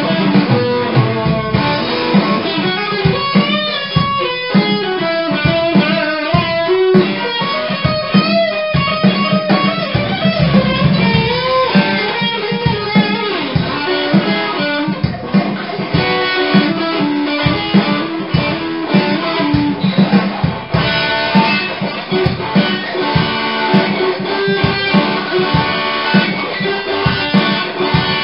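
Electric guitar played rock-style: picked single-note lead lines with bent, wavering notes in the first half, then steadier repeated riffs.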